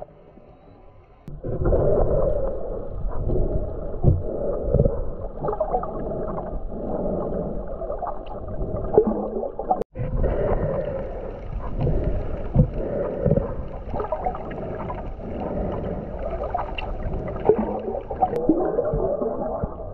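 Muffled underwater sound picked up by a GoPro's microphone below the surface: gurgling and sloshing water with irregular knocks. It starts abruptly shortly after the beginning and breaks off for an instant about ten seconds in.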